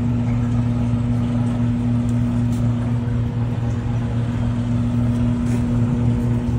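Aquarium pump humming steadily, a constant low electric hum with a hiss over it.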